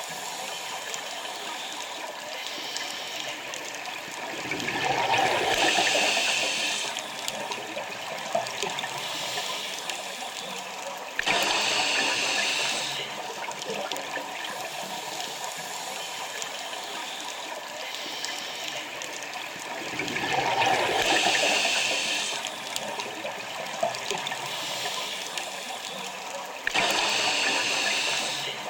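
Scuba diver's breathing through a regulator, heard underwater: two breath cycles, each a swelling rush of bubbles followed some seconds later by a sudden hiss about two seconds long, over a steady underwater hiss.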